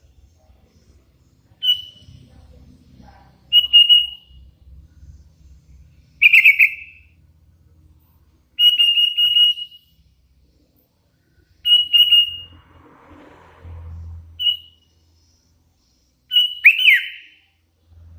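Hand-fed sooty-headed bulbul (kutilang) chick giving short whistled calls, about seven of them spaced a second or two apart. One near the middle is longer, and the last sweeps down in pitch.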